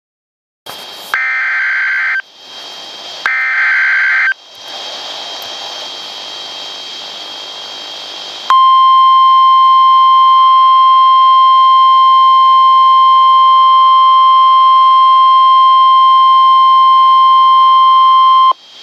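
Emergency Alert System broadcast alert: two one-second bursts of screeching digital header data, then a few seconds of hiss, then the long, steady single-pitch weather radio alert tone held for about ten seconds before it cuts off.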